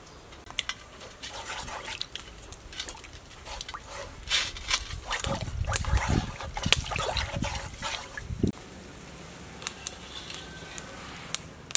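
Palm sugar and water boiling in a stainless steel pot, bubbling, while a metal spoon stirs and clinks against the pot. The bubbling and stirring are loudest through the middle and settle to a few light clicks over the last few seconds.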